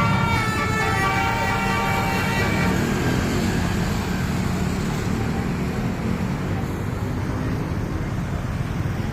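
Telolet musical bus horn sounding several held notes that die away about three seconds in, followed by steady road traffic noise.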